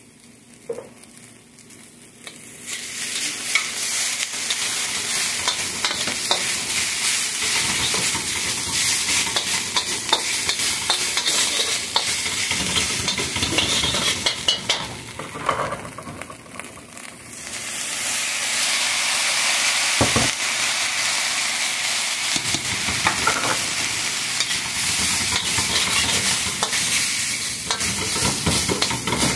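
Rice, onion and bean sprouts sizzling in a hand-hammered wok while a metal spatula scrapes and clanks against the pan as the food is stir-fried. The sizzle rises a couple of seconds in, eases off for a few seconds past the middle, and comes back strong.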